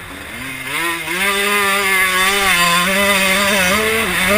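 Motocross bike engine heard from on board the bike: throttle briefly eased at the start, then opened up about a second in, revving high and holding as the bike accelerates, with a couple of dips and climbs in pitch near the end. A steady rush of wind noise runs underneath.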